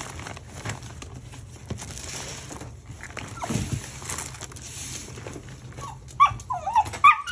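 A Shiba Inu whining and yelping in loud, wavering high-pitched cries from about six seconds in, after a stretch of quiet rustling from the suitcase being packed. The owners take the cries for distress at the packing, which they think she links to flying.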